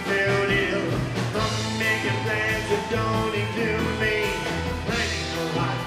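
Live rockabilly band playing: strummed acoustic guitar, electric guitar and drums.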